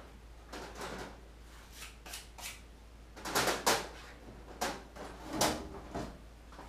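Drawers of a rolling steel tool chest being slid open and shut in a series of short clattering bursts, the loudest about three and a half seconds in.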